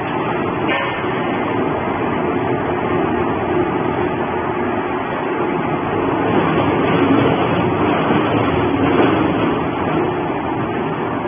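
Industrial shredder running and tearing up cardboard boxes: a loud, steady mechanical noise that swells a little a couple of times in the second half.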